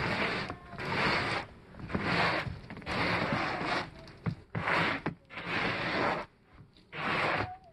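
Long-handled snow rake scraping and dragging through snow on a roof, in repeated strokes about once a second.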